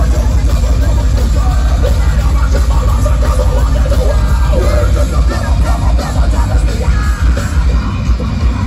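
A heavy metal band playing live through a loud concert PA, with electric guitar, a heavy bass-laden low end, and yelled vocals over the top.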